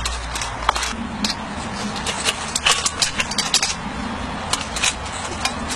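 Irregular light clicks and clinks of small hard objects being handled, over a steady background hiss.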